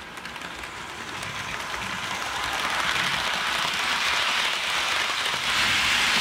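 HO scale Athearn Genesis Union Pacific 844 model steam locomotive and its passenger cars running on track: a steady rolling noise of motor and wheels on rails that grows louder throughout, stepping up near the end.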